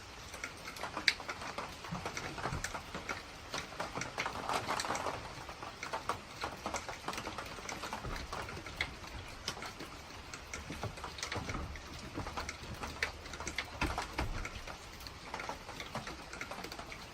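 Rain falling, with many individual drops striking close by in irregular sharp ticks over a steady hiss.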